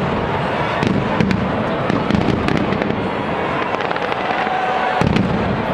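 Fireworks display going off continuously: a steady rumble of booming shell bursts with many sharp bangs and crackles on top, about five a second or more.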